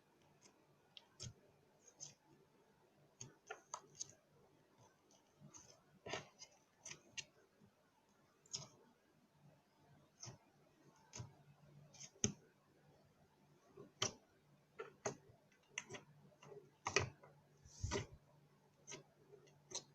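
Slime being squeezed and poked by hand, giving irregular soft clicks and pops, a few of them louder.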